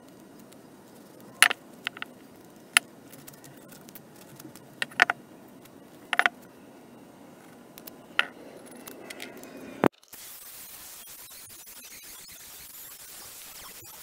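Metal parts clinking and tapping, about six sharp clinks spread over ten seconds. Then, after an abrupt cut, a steady hiss.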